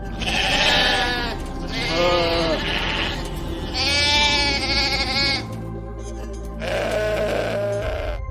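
Sheep bleating four times, long wavering calls with the last one lower, over steady background music.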